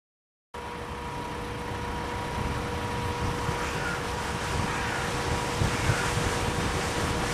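Wind buffeting the microphone outdoors: a low, gusty rumble that cuts in about half a second in and grows slowly louder, with a faint steady hum under it.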